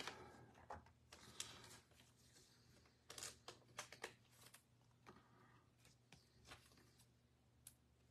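Faint, scattered rustles and soft clicks of Bowman Chrome baseball cards being handled and sorted, with a few brief taps spread irregularly through.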